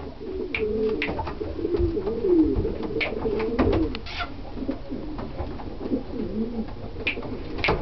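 Domestic pigeons cooing: low, wavering coos repeating throughout, with a few sharp clicks or knocks.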